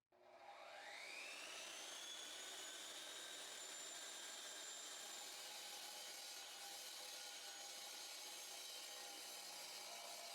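Power saw for cutting concrete starting up, its whine rising over about a second and a half, then running steadily at full speed.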